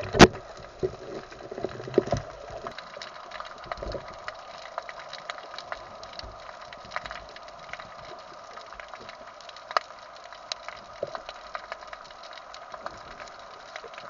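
Underwater crackle of many small scattered clicks, typical of snapping shrimp on a rocky reef. A single sharp knock comes just after the start, with a few softer knocks in the next few seconds.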